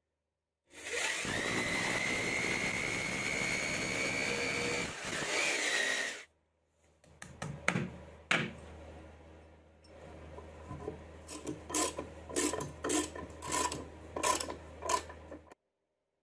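Electric drill with a masonry bit boring into a plastered wall, running steadily for about five seconds. Then a hammer taps a wall plug into the hole: two blows, then a quicker run of about ten.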